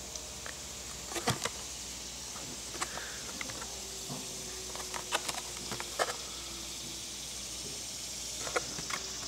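A plastic blister pack on a cardboard backing card being handled and turned over: scattered light clicks and crinkles of the plastic bubble and card, over a steady faint hiss.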